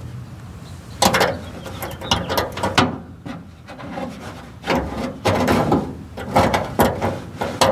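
Irregular knocks, scrapes and clatter of seat-belt anchor hardware and bolts being handled and fitted in an old truck cab, starting about a second in and coming in several bunches.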